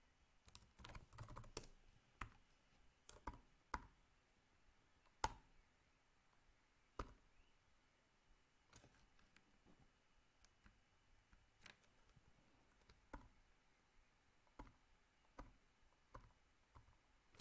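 Faint, scattered keystrokes on a computer keyboard: single taps and short runs at irregular spacing with pauses between, busiest in the first few seconds.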